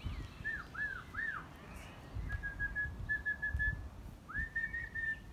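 Sheepdog handler's whistled commands to a working border collie: three short rising-and-falling whistles, then a long level whistle broken into quick pulses, then a whistle that rises and holds.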